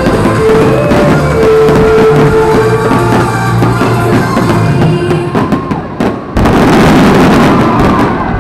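Loud pyromusical soundtrack music with fireworks bursting through it. About six seconds in the sound drops out briefly, then comes back as a dense, noisy stretch.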